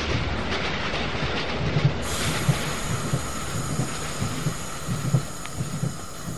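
Railway train rolling along, its wagons rumbling and the wheels clacking over the rail joints with a rhythmic low knock, growing slowly fainter.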